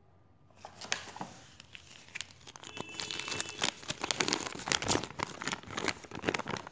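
Paper and plastic packaging crinkling and rustling as it is handled, in quick irregular crackles that start about a second in and grow busier in the second half.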